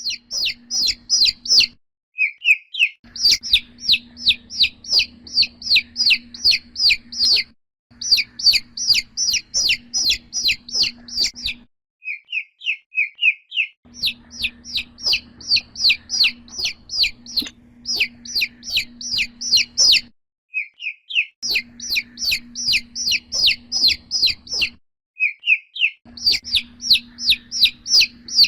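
Chicken chick peeping: high, downward-sliding peeps about three a second, in runs of several seconds broken by short pauses. Some runs open with a few softer, lower peeps.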